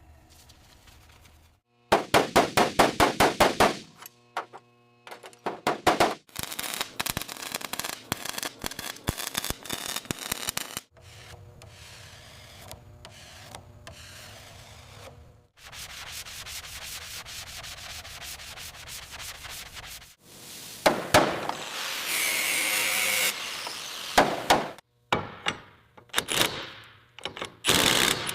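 A string of short, cut-together workshop sounds of restoration work: a quick run of back-and-forth rubbing strokes about two seconds in, then scratchy scraping and rubbing, and a louder steady hiss for a couple of seconds after the middle.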